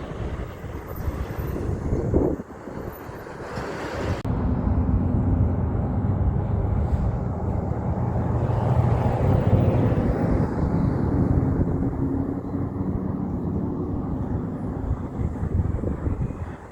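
Heavy truck engine running as a big truck goes by, growing louder toward the middle and easing off after. The sound changes abruptly about four seconds in.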